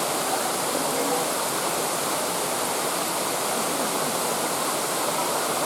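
Water cascading steadily down a waterfall into a stream, an even rushing hiss without breaks.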